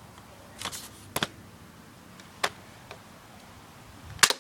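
BB gun clicking: a handful of short sharp clicks, a close pair about a second in and the loudest one near the end.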